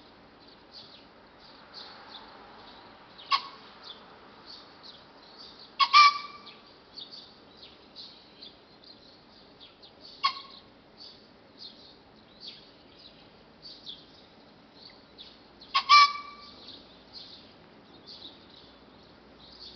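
Male green pheasant crowing in four short, sharp calls spaced several seconds apart, the second and fourth loudest and doubled. The calls are clipped rather than long, which the uploader takes for a young bird that cannot yet call long. A faint, steady high chirping runs underneath.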